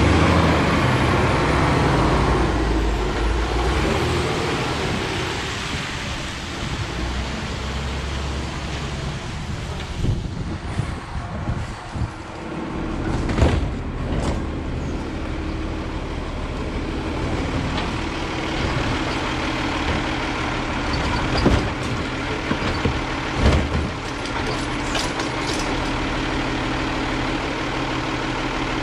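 Autocar Xpeditor side-loader garbage truck's diesel engine, loudest and deepest in the first few seconds as the truck pulls away, then running steadily. Several sharp bangs come in the middle and again later.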